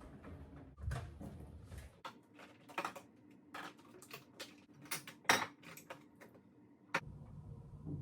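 Objects being handled by hand: a run of irregular clicks, taps and light clinks, like dishes or kitchen things being moved and set down, with the sharpest knock about five seconds in.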